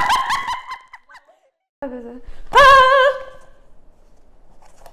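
A woman laughing loudly, then after a short cut a brief low vocal sound and a long, high, wavering vocal call, fading to faint room noise.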